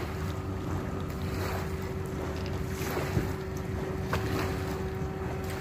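Vehicle engine idling with a steady low rumble and a constant hum, while wind buffets the microphone.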